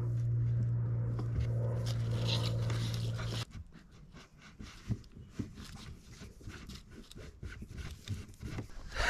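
A steady low hum that cuts off abruptly about a third of the way in, followed by quiet rustling and small scrapes and clicks as a black cable is pushed through a hole in a concrete block wall.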